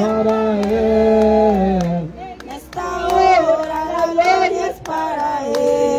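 A woman singing a hymn into a handheld microphone, with long held notes and a short break about two seconds in, while handclaps keep time.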